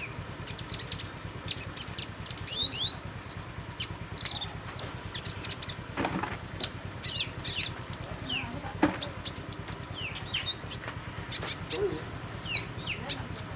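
Van Hasselt's sunbird (kolibri ninja) twittering: rapid clusters of short, high chirps and quick rising and falling notes, over a faint low hum.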